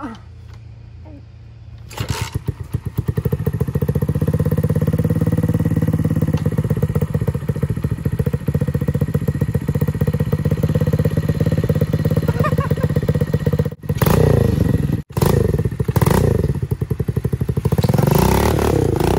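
Small single-cylinder engine of a Chinese-made mini dirt bike starting about two seconds in and running at a fast, even idle. Near the end it is revved up and down in short blips.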